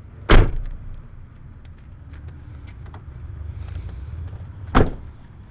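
Two doors of a 2003 Ford F-150 four-door pickup being shut: a heavy thump about a third of a second in and another near the end, over a low steady rumble.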